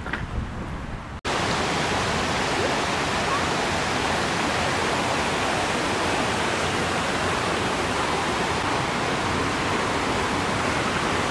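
Steady rush of a waterfall, starting abruptly about a second in; before it, wind buffets the microphone.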